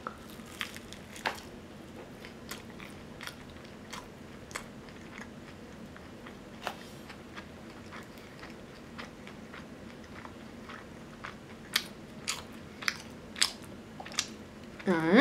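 Close-miked eating sounds: biting into and chewing fried chicken, with scattered soft crunches and wet mouth clicks that come more often near the end. The crust is no longer crisp, having sat a while before being eaten.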